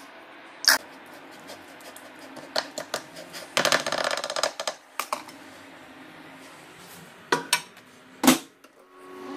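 Metal spoon scraping and clattering against a plastic bowl while stirring sauce into shredded chicken, with a few sharp clicks. Near the end comes a loud knock as the bowl goes into a microwave and its door shuts, then the microwave starts up with a steady hum.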